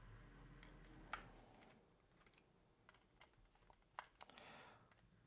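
Faint, scattered clicks and ticks of a small precision screwdriver working screws out of a Philips Hue Outdoor Sensor's plastic housing, with a brief rustle of handling about four seconds in.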